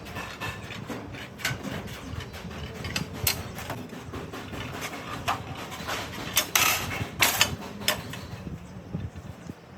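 Irregular taps, knocks and scrapes of hand tools at work, with a few sharper strikes about two-thirds of the way through.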